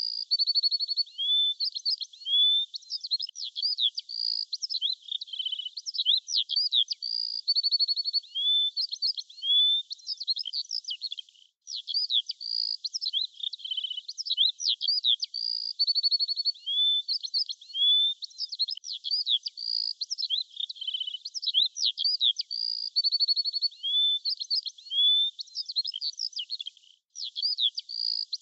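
Birdsong: a bird singing a quick run of varied high chirps, short trills and rising whistles, breaking off briefly about a dozen seconds in and again near the end.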